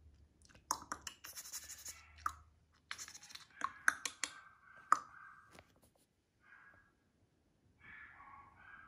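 A Shih Tzu puppy scratching and digging at a fleece blanket with its paws and nose: repeated bursts of scratchy rustling with sharp clicks. It goes quiet after about five and a half seconds, apart from a few fainter short sounds near the end.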